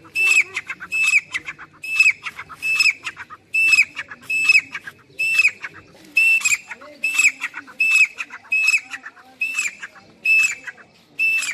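Grey francolin calling over and over, a loud call about every three-quarters of a second. Each call is a high note that drops in pitch, followed by a quick stuttering run of clicks.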